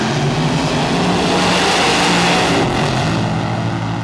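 Nitro-burning drag racing car launching off the line and running down the strip at full throttle: a loud, steady engine note that dips briefly in pitch about three seconds in.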